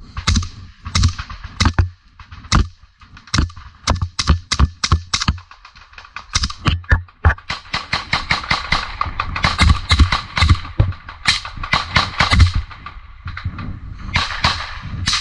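Rifle fire in a firefight from AK-type assault rifles: single shots about a second apart at first, then from about six seconds in, shots come fast and overlapping, several guns firing at once.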